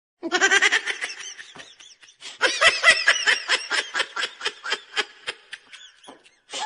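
High-pitched human laughter in two long bouts of rapid 'ha-ha' bursts, the second and louder one starting about two seconds in.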